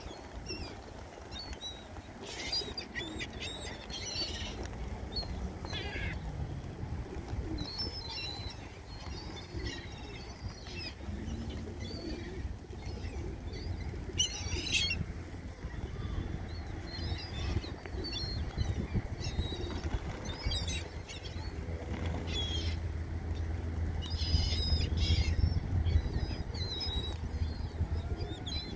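A large flock of feral pigeons and gulls feeding on the ground, with wings flapping as birds take off and land, and short high gull cries scattered throughout. Under it runs a steady low rumble that grows louder near the end.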